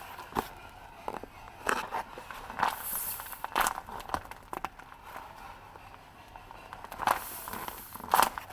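Paper crinkling and rustling in short, irregular bursts as paper squishies are handled.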